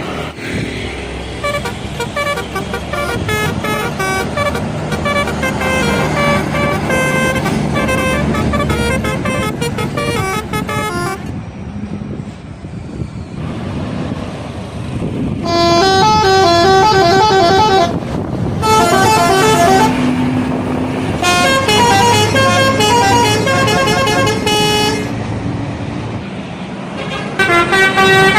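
Indonesian bus telolet horns, multi-tone air horns, playing quick melodic tunes of stepped notes over a running bus engine. The tunes drop away for a few seconds around the middle and then come back louder.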